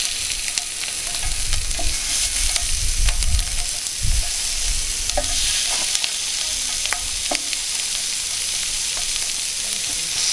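Raw seasoned chicken wings sizzling on the hot grill plate of a Cadac Carri Chef 2 gas grill on a low flame, with light taps and clicks as each wing is laid down.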